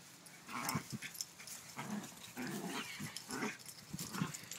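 Terriers play-growling in short bursts, about five growls in quick succession.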